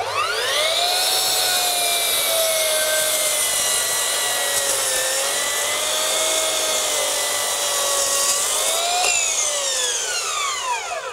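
Bosch PROFACTOR 18V Surgeon 12-inch cordless glide miter saw's brushless motor spinning up with a rising whine, then cutting through two stacked 2x12 boards, its pitch sagging a little under load. About nine seconds in the pitch jumps up as the blade comes free of the wood, then winds down once the trigger is released.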